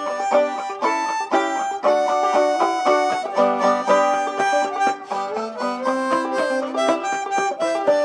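Homemade banjo played clawhammer style: a quick, steady run of plucked melody notes over ringing strings, an instrumental break of the old-time tune without singing.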